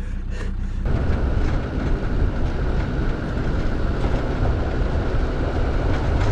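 Land Rover Defender Td5 five-cylinder turbodiesel engine running, rising suddenly in level about a second in and then holding a steady, rattling rumble.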